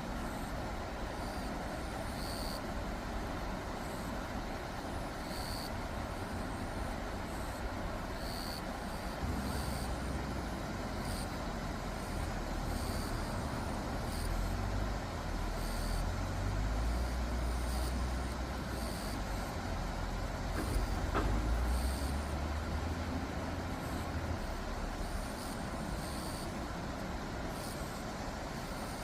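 Steady low rumble of road traffic, growing louder from about nine seconds in and easing a few seconds before the end, with short faint high chirps recurring every second or two.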